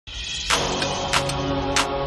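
Background music with a steady beat, a hit about every two-thirds of a second over held chords, starting about half a second in.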